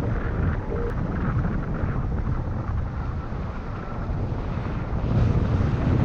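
Wind buffeting the microphone of a camera mounted outside a moving car, over a low rumble of road and engine noise. It grows a little louder near the end.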